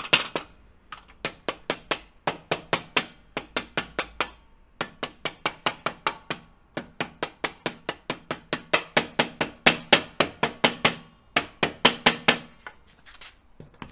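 Rubber mallet tapping the end of a motorcycle frame slider's through-shaft, driving it through the engine mount: runs of light knocks, about three or four a second, with short pauses between runs, stopping about a second before the end.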